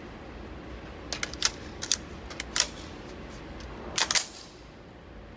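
Sharp metallic clicks and clacks of a B&T KH9 9mm pistol being handled and readied. A scatter of clicks comes over about a second and a half, then a louder double clack about four seconds in, over a low steady hum.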